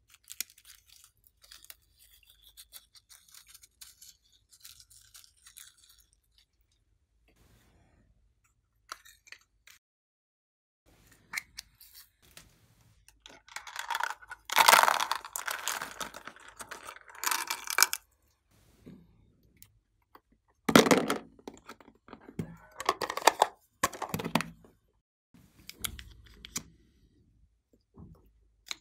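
Close-up handling sounds: faint snipping and crinkling as scissors cut open a squishy toy. About halfway through comes louder crackling and tearing of plastic as a small bottle is unwrapped, with a few more short bursts of it a few seconds later.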